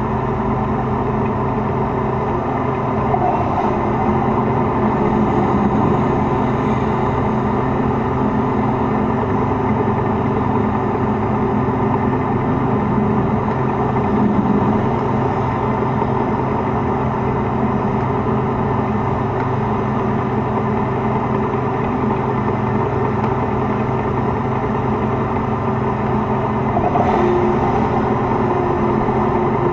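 T-72 tank's V-12 diesel engine running steadily, heard close up from a camera mounted on the tank.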